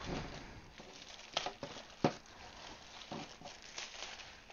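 Thin clear plastic packaging bag crinkling and rustling as a small PC speaker is pulled out of it, with a few sharp clicks and ticks.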